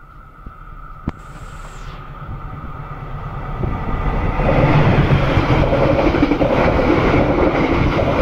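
A train passes close by on the adjacent track while the recording train stands at the station. A sharp click comes about a second in, then the train's rumble builds over the next few seconds and holds as a steady, loud wheel-and-rail clatter.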